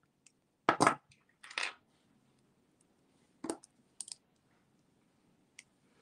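Chain nose pliers and small metal jewelry findings (jump ring and end cap) clicking and tapping against each other: a few sharp, separate clicks, the loudest a quick double click about a second in.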